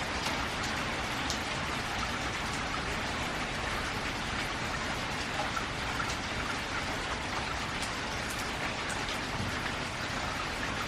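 Steady rain falling on a metal roof: a dense hiss with many small, sharp drop ticks. No thunder stands out.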